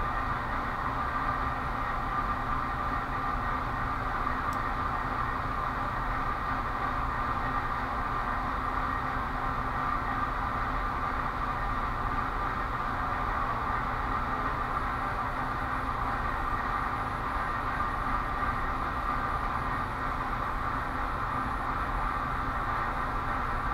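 Steady mechanical whir with a faint low hum, unchanging and without distinct clicks or knocks.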